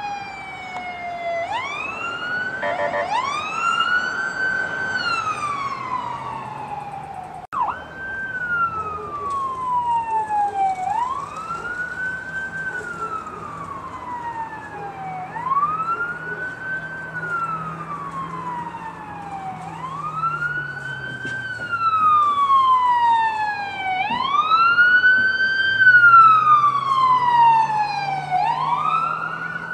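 Emergency vehicle siren sounding a wail. Each cycle rises quickly, then falls slowly, repeating about every four seconds, with a faint low hum underneath.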